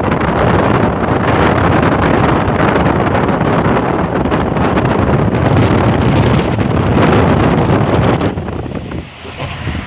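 Heavy wind buffeting on the microphone, mixed with road noise, from a car moving at speed with its window open. About eight seconds in it drops off sharply to a quieter rumble.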